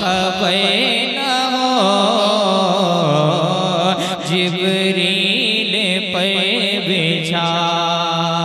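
A man singing an Urdu naat into a microphone, unaccompanied by rhythm, in long ornamented notes that waver and glide in pitch over a steady low tone.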